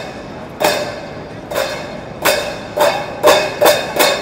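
A pair of brass hand cymbals crashed together seven times, each crash ringing briefly, the strikes coming closer together toward the end.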